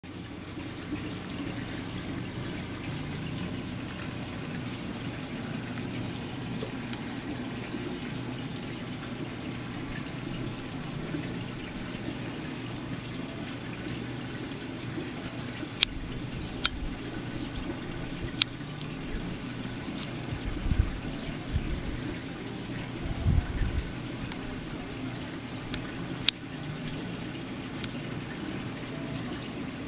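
Steady trickling and pouring of water from a reef aquarium's circulation and filtration. A few sharp clicks come in the second half, with a couple of low thumps between them.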